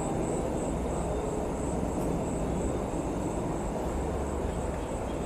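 Night ambience: a steady low rumble of distant highway traffic, with a faint, high, pulsing insect trill over it.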